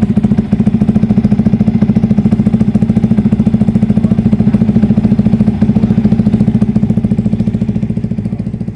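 Yamaha R15 V3's single-cylinder 155 cc engine idling through an Austin Racing aftermarket exhaust, a steady, evenly pulsing putter at constant pitch that begins to fade out near the end.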